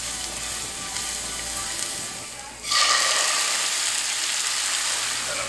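Minced garlic sizzling in hot oil in a frying pan. About two and a half seconds in, chopped roasted tomatoes go into the pan and the sizzle jumps suddenly much louder and holds.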